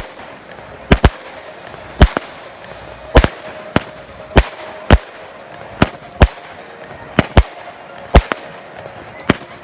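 Fireworks exploding: a string of sharp bangs, about fifteen of them, irregularly spaced and sometimes coming in quick pairs.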